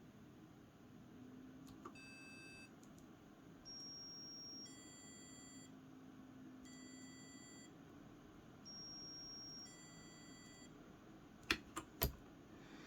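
Homemade digital alarm clock going off: its buzzer beeps a series of steady electronic tones, each about a second long, alternating between two different sounds, as the one-minute alarm time is reached. A few sharp clicks come near the end.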